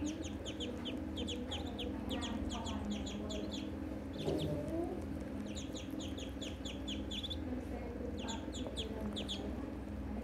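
Muscovy ducklings peeping: quick runs of short, high calls from several birds, broken by brief pauses.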